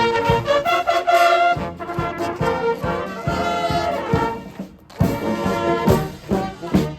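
Military band playing a march: brass with a steady drum beat, the music dropping away briefly about two-thirds of the way through before starting again.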